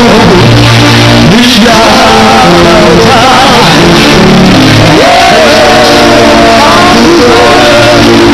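Loud live church worship music: held instrument notes under voices singing.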